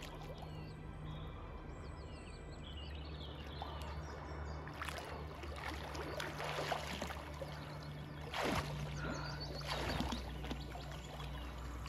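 Lake water splashing and sloshing as a person wades in and swims, with louder splashes of swimming strokes about five, eight and a half and ten seconds in.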